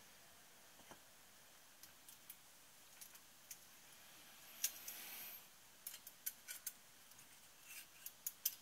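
Light clicks and small metallic clinks of a piston, piston ring and ring expander pliers being handled on a workbench, with a brief louder clatter about halfway through.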